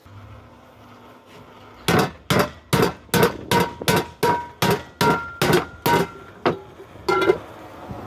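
A hammer striking a metal pressure cooker part, about a dozen sharp blows at two to three a second starting about two seconds in, each leaving a brief metallic ring.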